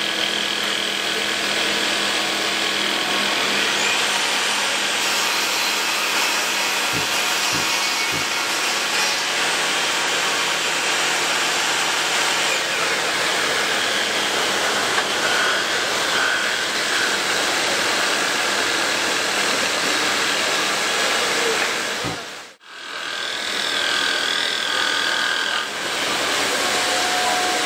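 Bosch GTS 10 XC table saw running steadily as a wooden board is ripped through its blade. The sound drops out sharply for a moment about 22 seconds in, then comes back.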